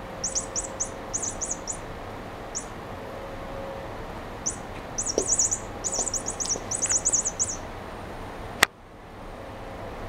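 Chirping toy mouse giving quick, high, bird-like chirps in rapid clusters, one spell in the first couple of seconds and a longer one from about halfway through, as cats bat it. A single sharp click near the end.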